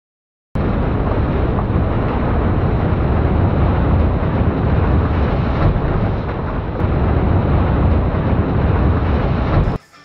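Hydraulic two-ram scrap baler running: a loud, steady mechanical rumble that cuts in abruptly about half a second in and stops just before the end.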